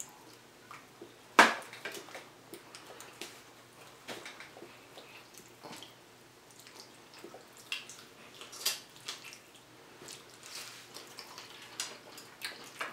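Close-miked eating sounds: wet chewing and lip smacks, with scattered clicks of forks on plates. The loudest smack comes about a second and a half in.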